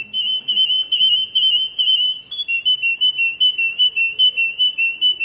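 Domestic canary singing a rapid, rolling trill held at nearly one high pitch, stepping slightly up and down, that cuts off abruptly at the end.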